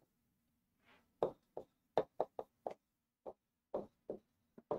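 Dry-erase marker writing on a whiteboard: a run of about ten short, irregular strokes starting about a second in, as letters are drawn one after another.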